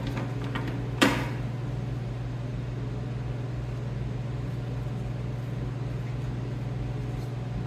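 A steady low hum from a running machine or fan, with one sharp knock about a second in.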